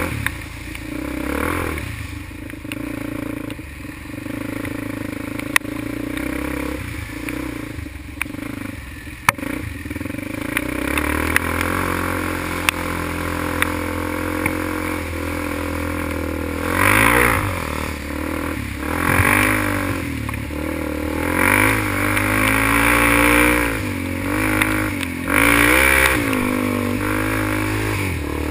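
ATV engine running under load, revving up and down several times in the second half. A few sharp knocks come in the first ten seconds.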